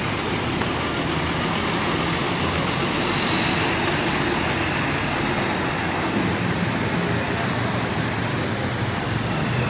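Diesel engine of a large intercity coach bus running steadily as the bus drives slowly away across a wet terminal yard.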